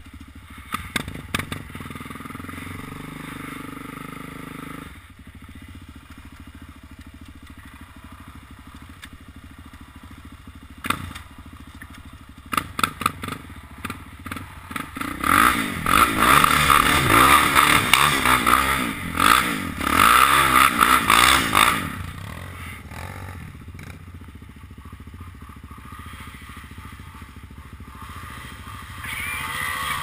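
Suzuki sport ATV engine idling, with a few knocks, then revving hard for about seven seconds from roughly halfway through, its pitch rising and falling as the quad ploughs through a shallow creek with water and mud splashing. It then drops back to a low idle, and revs briefly again near the end.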